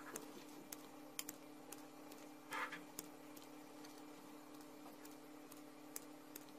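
Kitchen scissors snipping through thin sheets of raw dough: a faint, irregular series of short clicks, with a brief rustle about two and a half seconds in, over a steady low hum.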